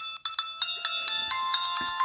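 Samsung Galaxy S3 stock ringtone: a quick melody of bright, bell-like chiming notes over a held low tone. One tone breaks off right at the start and, after a short gap, the next begins.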